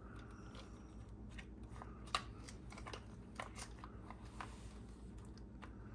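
Scattered light clicks and taps of a small brushless motor being handled and test-fitted into an RC truck's plastic chassis, one sharper click about two seconds in, over a low steady hum.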